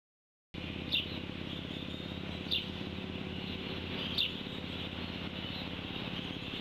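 A small bird chirps three times, short quick downward notes about a second and a half apart, over steady outdoor background noise with a faint low hum.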